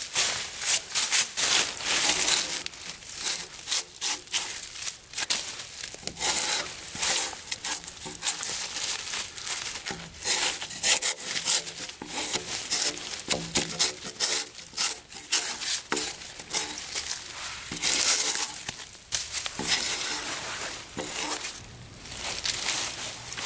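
Drawknife shaving bark off a freshly felled log: repeated scraping strokes as the blade is pulled along the trunk, with bark strips tearing away.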